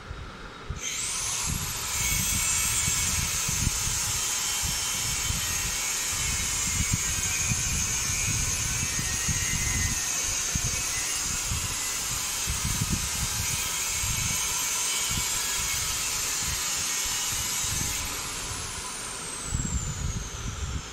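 A small electric motor spins up with a quickly rising whine about a second in, runs steadily with a high whine and hiss, then winds down with a slowly falling whine near the end. Irregular dull knocks sound underneath throughout.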